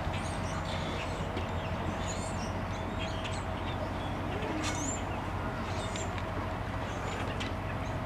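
Many birds chirping and whistling in short, high calls, one every second or so, over a steady low rumble and a faint steady hum.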